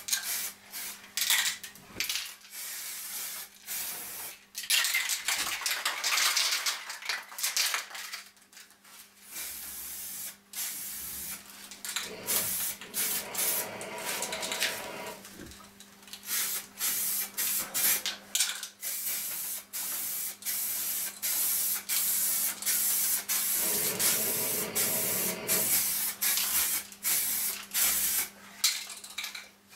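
Spray paint hissing in many short on-off bursts as the first coat goes onto the back of an aluminium sundial, over a steady low hum.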